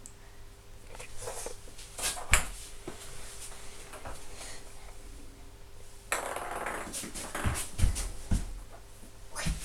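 Scattered dull thumps and rustling from a child moving about and jumping on foam floor mats, with a cluster of heavier thumps near the end.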